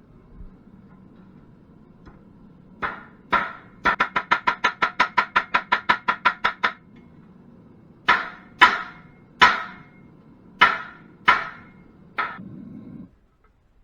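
Hammer blows on metal, each ringing briefly. There are two blows, then a fast run of about six a second for nearly three seconds, then six slower blows about half a second to a second apart. A faint low steady rumble lies underneath and stops near the end.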